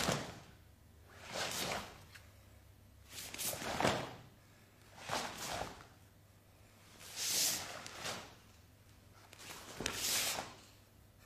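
A karateka performing the Shisochin kata: about six whooshing rushes of sound, one every second or two, each as a technique is executed.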